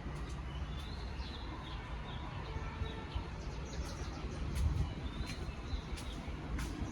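A steady low rumble with birds chirping briefly about a second in and again around five seconds in, along with a few faint clicks.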